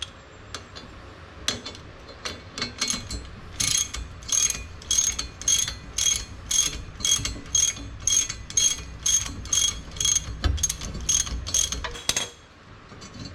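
Hand ratchet wrench clicking in a steady series of quick strokes, about two a second, loosening the bolts of a front engine mount. The clicking stops near the end.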